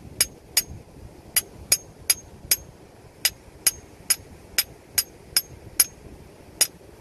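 Claw hammer striking the end of a chisel held against rock, chipping a Natal rock oyster free: a quick series of sharp metallic clinks, about two to three a second with short pauses, some with a brief high ring.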